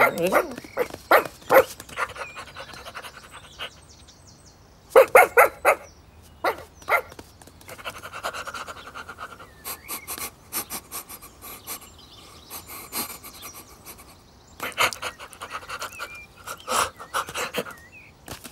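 Cartoon puppy's panting and sniffing, in quick clusters of short breaths with pauses between them, with a few small squeaks.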